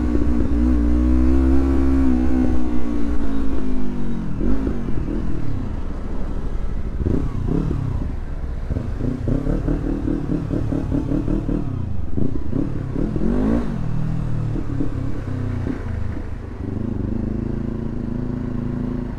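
Motorcycle engine heard from the rider's seat as it works through traffic: it slows at the start, then the revs rise and fall again and again with short bursts of throttle, with long steady stretches between. A steady low wind rumble on the microphone runs underneath.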